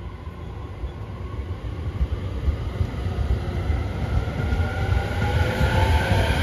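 E231 series electric commuter train accelerating away from a stop and running close past, getting louder throughout. Its traction motors' whine rises in pitch over the rumble of wheels on rail.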